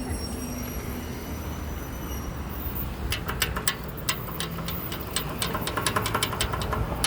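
Road traffic passing through an intersection: a steady low rumble of vehicles, with a thin high whine over the first two seconds and a quick run of sharp clicks or rattles from about three seconds in.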